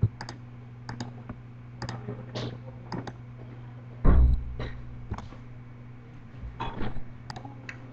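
Scattered computer mouse clicks and keyboard keypresses, with one louder low thump about four seconds in, over a steady low electrical hum.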